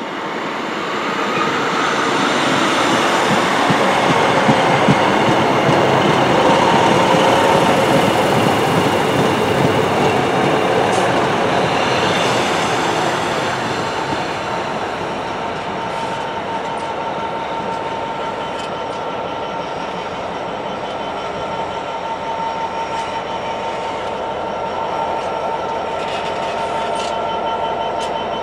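An East Midlands Trains diesel multiple unit runs close past on the rails with a dense wheel-and-engine rumble and clatter, loudest about four to eight seconds in. It then eases into a steadier train sound carrying a continuous high ringing squeal of wheels as the GBRf Class 66 diesel locomotive and its freight wagons move through.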